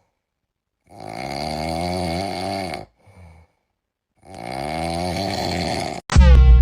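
Two long snores, each about two seconds, with a short faint breath between them; loud music cuts in suddenly near the end.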